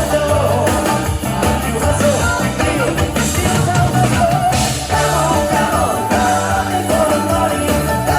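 Live band playing a rock song in folk-bluegrass style, with accordion, a steady beat and singing.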